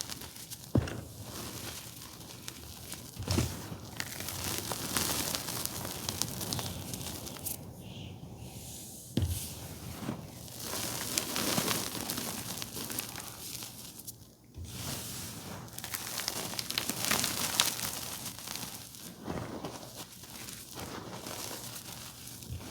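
Blue reformed gym chalk being crushed by hand: a continuous dry crunching and crumbling, broken by a few sharp snaps as pieces break.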